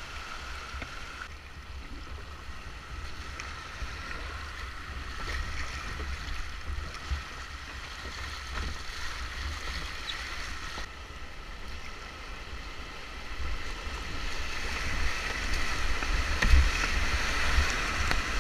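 Rushing river rapids with a low rumble on the microphone. The rush grows louder over the last few seconds as the kayak runs into bigger whitewater.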